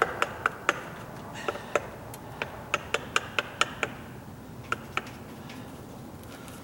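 Light, sharp hammer taps on a wood chisel cutting a mortise in a door edge: about fifteen quick taps in irregular bursts over the first five seconds.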